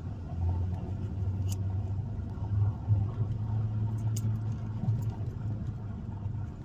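Car engine and road noise heard from inside the moving car's cabin: a steady low hum with a few faint clicks.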